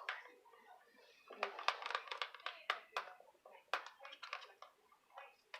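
A spoon stirring fluffy slime mix of school glue and shaving foam in a bowl to blend in the colouring. From about a second and a half in there is a run of irregular sticky squishes and clicks.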